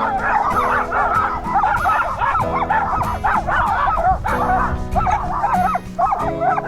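Several miniature dachshunds barking and yelping over one another, continuously and at full volume, over background music with held chords.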